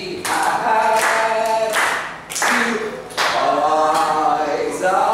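A group of children singing together without accompaniment, in phrases a second or so long with short breaks between them.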